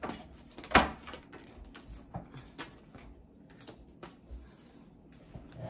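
A deck of cards being shuffled and handled: scattered soft taps and flicks, the sharpest one a little under a second in, as a card is drawn and laid on a glass tabletop.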